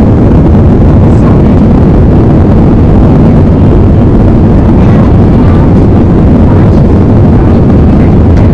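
Loud, steady cabin noise of an Airbus A320 on the runway early in its takeoff roll: the jet engines are running at high power, heard from a window seat behind the wing.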